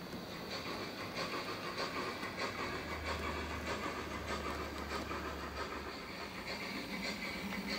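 Digital steam sound from a Zimo MX645R decoder in an OO gauge Hornby Crosti 9F model, playing exhaust beats and hiss through its speakers, with the model train's wheels rattling over the track and a low rumble in the middle.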